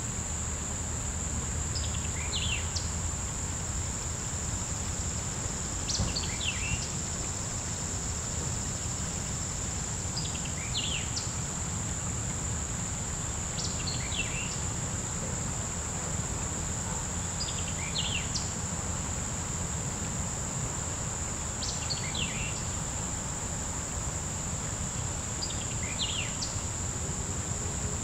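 Insects singing in one steady high-pitched drone, while a bird repeats a short song of quick descending notes about every four seconds, over a low steady rumble.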